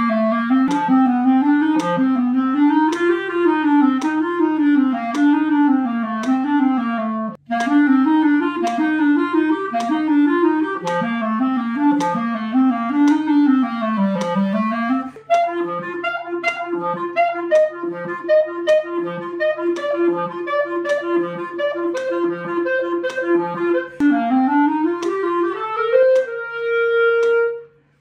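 Clarinet playing a technical practice study against a metronome clicking just under twice a second. It plays fast scales in thirds that rise and fall, with a short breath about seven seconds in, then a passage of repeated octave leaps between low and higher notes. It ends with a rising run to a held high note just before the end.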